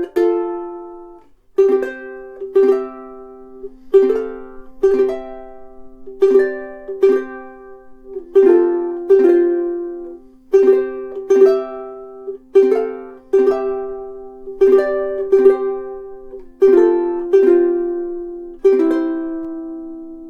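Kiwaya KPS-1M all-solid mahogany soprano ukulele played in chords, each struck chord ringing and fading before the next, in a slow steady rhythm. The last chord is left to ring out near the end.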